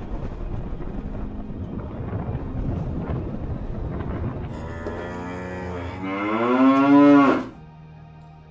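A cow moos once, a long call that rises in pitch and grows louder, starting about five seconds in and stopping abruptly near the end. Before it there is a steady rushing noise.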